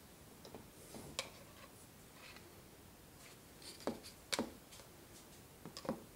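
A handful of light knocks and clicks from a small clear plastic tub being picked up and moved about by hand, the loudest a little over four seconds in.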